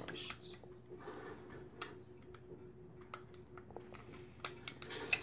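Scattered light clicks and taps of small metal parts and screws being handled while a sewing machine is put back together, over a faint steady hum.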